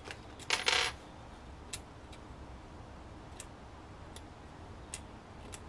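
Small metal parts being handled on an aluminium carburettor bank: a short rattle about half a second in, then a few faint, sparse clicks.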